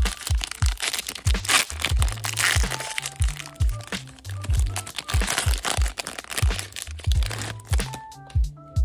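Trading card pack wrapper being torn open and crinkled in the hands, a dense crackling that stops about a second before the end, over background music with a steady beat.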